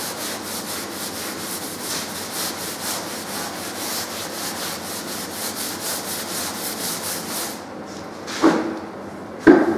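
Stiff brush scrubbing a wet painted plaster wall in quick, even back-and-forth strokes, several a second, loosening the old wallpaper paste. The scrubbing stops about three-quarters of the way through, followed by two short sounds near the end, the second a sharp tap.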